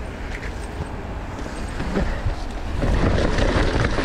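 Mountain bike riding fast down a muddy dirt trail: tyres rolling and skidding over the dirt, the bike rattling, and wind rushing over the microphone. It gets louder about three seconds in as the bike carves through a bermed corner.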